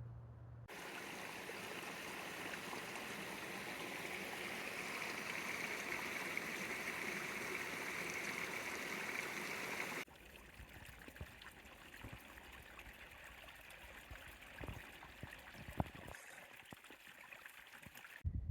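Steady rushing water of a stream, cutting off abruptly about ten seconds in. A quieter stretch with a few soft knocks follows.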